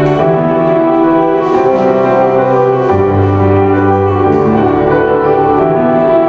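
Recorded music for a dance performance: a slow piece of sustained chords in strings and piano, the chords changing every second or two.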